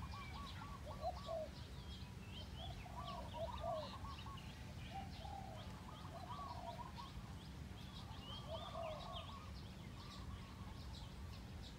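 Spotted doves cooing in short repeated phrases of low coos, with small birds chirping thinly above them.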